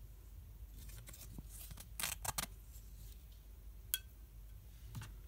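A few short scratchy clicks and taps, a small cluster about two seconds in and one sharp click near four seconds, as something is touched against the glass tube of a plasma lamp, over a faint low hum.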